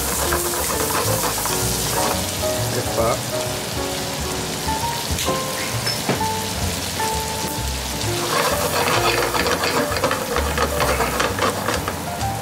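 Cream sauce sizzling and bubbling in a frying pan while it is stirred with wooden chopsticks; the crackling gets busier about eight seconds in. Background music with held notes plays over it.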